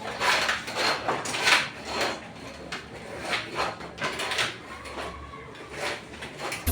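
A curtain being handled and hung on its rail: a string of irregular scraping and rustling noises as the fabric and its hooks or rings are moved along.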